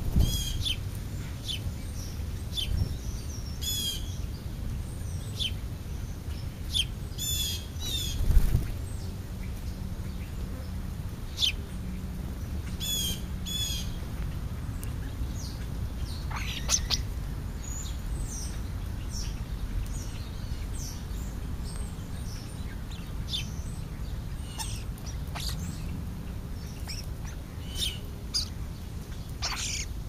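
European starlings calling: scattered short chirps and falling whistles, with a few harsh, raspy runs of quickly repeated notes. A steady low rumble runs underneath, and a single brief thump comes about eight seconds in.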